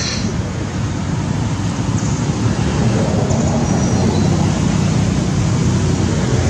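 Steady, loud rumbling outdoor background noise, with a couple of faint high chirps about two and three and a half seconds in.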